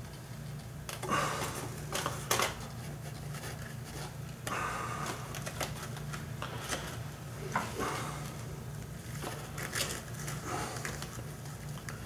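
Irregular rustling and crackling as bromeliads are handled and pressed into a bin of loose sphagnum moss, over a steady low hum.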